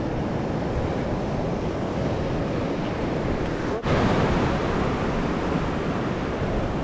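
Sea waves washing steadily against a rocky shore, an even rushing noise with wind buffeting the microphone; the sound dips for an instant a little under four seconds in.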